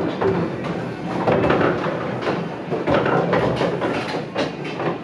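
Busy bar ambience: a steady din of indistinct background voices and clatter, with a few sharp knocks.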